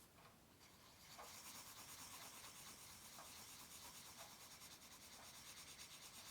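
A drawing tool scratching on paper. A few separate strokes come first. From about a second in, it changes to quick, even back-and-forth shading strokes.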